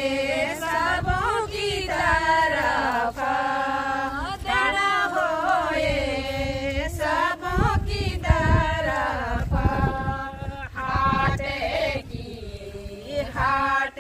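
Group of women singing a Kumaoni devotional bhajan together in chorus, in long gliding sung lines, with a few sharp knocks underneath.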